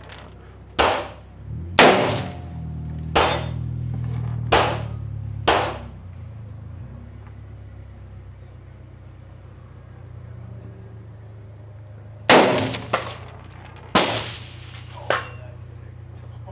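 Gunshots at an outdoor range, fired one at a time: five shots about a second apart, then after a pause of about six seconds three more, each with a short echoing tail.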